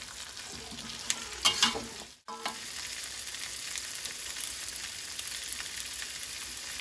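Jengkol slices and spice paste sizzling in oil in a wok, with a metal spatula scraping and knocking against the pan a few times in the first two seconds. The sizzle drops out for a moment just after two seconds, then runs on steadily.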